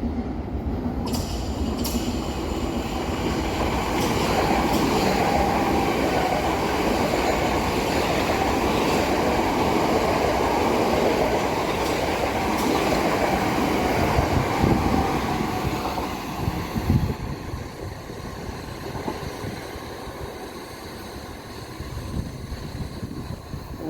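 Electric commuter train running through on the main line: a steady rumble of wheels and motors that builds over the first few seconds and holds. A few sharp clacks of wheels over rail joints come about two-thirds through, then the sound fades away.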